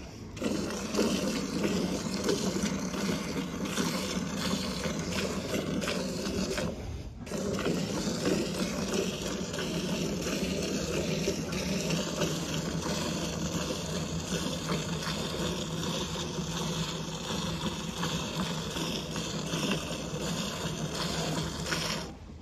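Hand-milking a sheep: rapid jets of milk squirting into a nearly full aluminium bucket of frothy milk, a continuous splashing with a brief break about seven seconds in.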